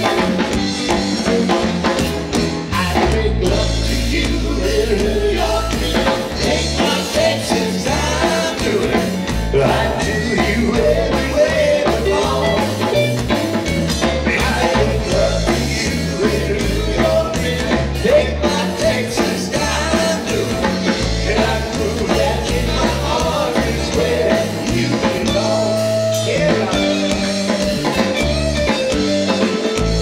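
Live rock-and-roll band playing an instrumental passage: electric guitar lead over bass guitar and drum kit.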